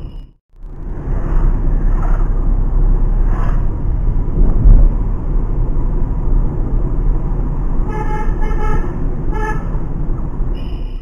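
Cabin noise of a Renault Kwid RXT 0.8 on the move: steady low engine and road rumble. A car horn sounds in a few short honks about eight to nine and a half seconds in.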